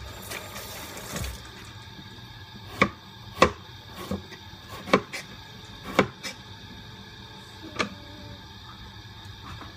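A kitchen knife knocking down on a cutting board as it chops, about six sharp separate strokes. Near the start there is a brief scraping of the blade being drawn along a sharpening steel.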